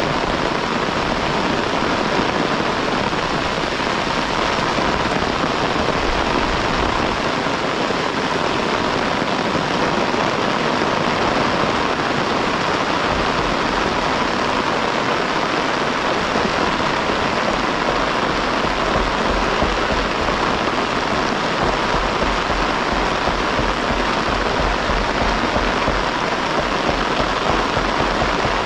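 Heavy rain falling steadily, an even dense hiss that holds without a break.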